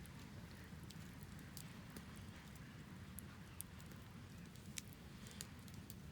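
Wood fire crackling: scattered sharp pops and snaps over a low steady rumble, with one louder pop near the end.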